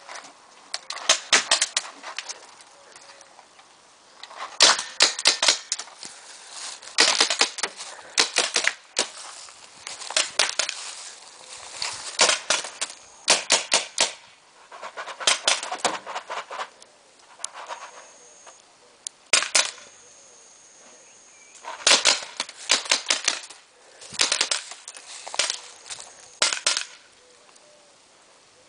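Paintball markers firing in rapid volleys: each volley is a quick string of sharp pops, with gaps of a second or more between volleys and a longer lull near the end.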